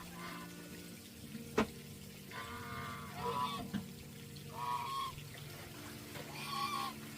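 Domestic geese honking, four separate calls a second or so apart, with a sharp click about a second and a half in and another near the four-second mark.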